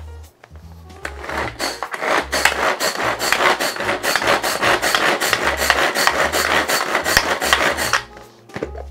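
Hand-pulled pull-cord food chopper being pulled over and over in quick succession, its blades whirring and rasping as they chop and mix tartar sauce (boiled egg, pickles, mayonnaise, mustard). The pulls start about a second in and stop about a second before the end.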